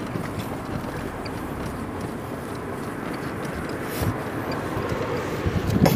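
Steady rolling noise from a moving hand-pulled rickshaw, with wind blowing on the microphone. There is a low thump about four seconds in and two louder ones near the end.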